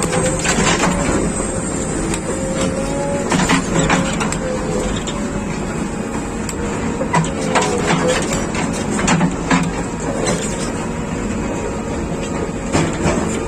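JCB 3DX Plus backhoe loader at work: its diesel engine runs steadily under a faint wavering whine, with irregular metal clanks and knocks throughout.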